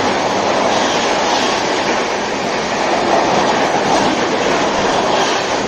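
Patna Rajdhani Express LHB coaches passing at speed: a loud, steady rush of wheel and running noise.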